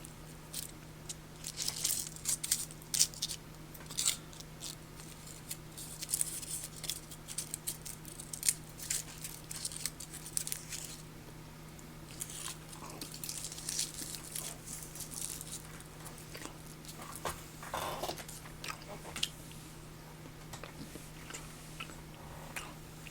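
Foil wrapper of a Hershey's Kiss crinkling as it is peeled off, with irregular sharp crackles, then the chocolate being chewed close to the microphone.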